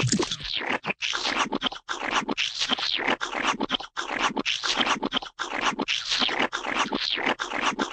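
Repeated rough scratching strokes, about one or two a second, with brief gaps between them.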